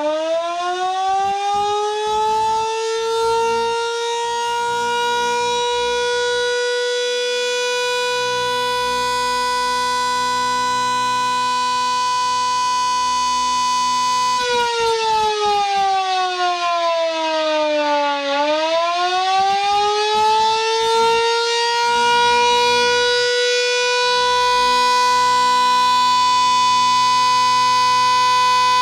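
Elektror S2a motor-driven siren running at a steady tone after winding up. About halfway through it is switched off and the pitch falls for several seconds. It is then switched back on and rises again to the steady tone. This on-off clocking by an SAG F2 siren controller is the East German 'Feueralarm' fire-alert signal.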